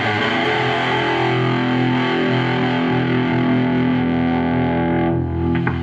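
Electric guitar played through a TS-9 Tube Screamer-style overdrive pedal driving a tube amp's high-gain channel: a crunchy distorted chord struck once and left to ring, its treble fading near the end.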